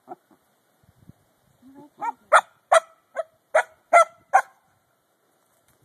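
Corgi puppy complaining: a short low whine, then a quick run of seven sharp, high barks over about two seconds, starting about two seconds in.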